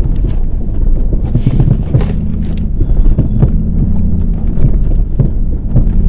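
Jeep engine running steadily while driving, with frequent irregular clunks and knocks from the vehicle. The clunking is new and loud, and the owners can't pin down where it comes from; they suspect the exhaust knocking around on broken hangers.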